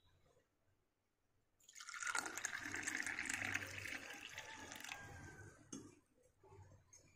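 A stream of water poured into a small metal tumbler, filling it. The pouring starts about one and a half seconds in, runs for about three seconds and trails off, with a small click just after.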